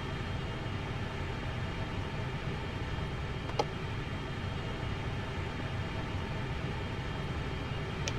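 Steady rumble and hiss of the Airbus A380's cabin with faint steady tones running through it, and a single short click about three and a half seconds in.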